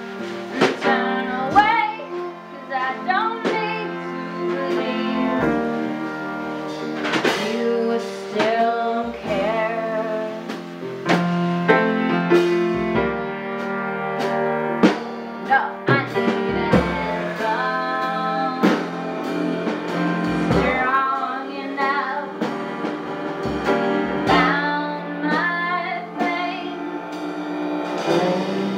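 Live band music: drum hits and a wavering melodic line over held chords.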